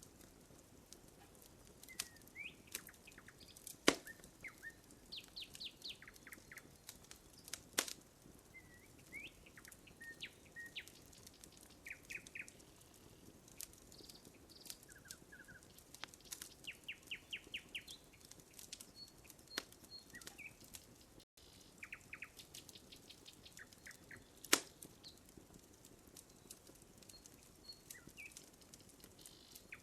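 Wood campfire crackling, with scattered small snaps and a few louder pops about 4, 8 and 24 seconds in, while songbirds chirp, with short rapid trills, in the background.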